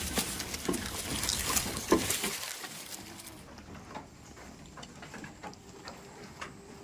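Goats moving about, with rustling and scattered short taps and knocks. It is busier and louder for the first two seconds, with one sharp knock about two seconds in, then it thins to faint, sparse clicks.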